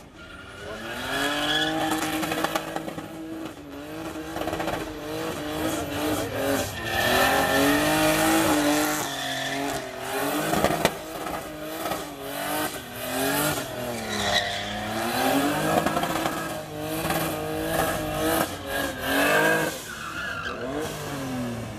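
Volvo 240 saloon doing a burnout: the engine held at high revs that rise and fall repeatedly as the throttle is worked, over the steady screech of spinning rear tyres.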